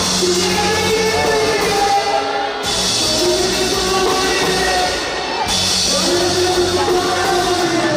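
Live rock band performance: a lead vocal sung over a full band of guitars, bass and drums. The bright top of the mix drops out for a moment twice.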